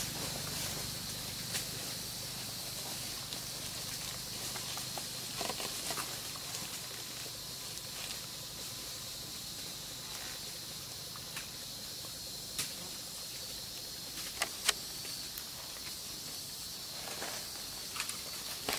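Steady high-pitched hiss of forest ambience, typical of an insect chorus, with a few faint sharp crackles of dry leaves stirred as the macaques shift on the leaf litter.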